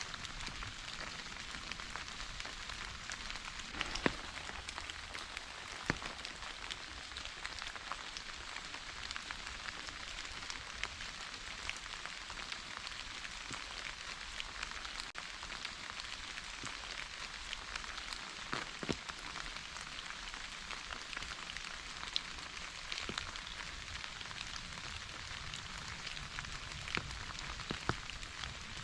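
Steady rain falling: an even hiss with many individual drops ticking through it, and a few louder drop hits scattered across it.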